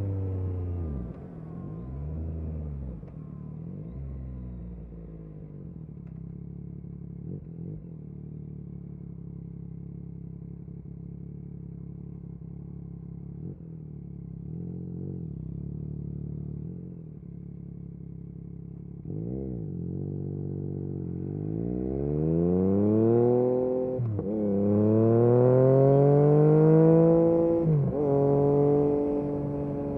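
Yamaha MT-09 SP's inline-three engine through an Akrapovič exhaust. The revs fall at the start, then stay low with a few short blips for a long stretch. From about two-thirds in, it accelerates hard through the gears: the pitch climbs and drops sharply at each upshift, and it is loudest near the end.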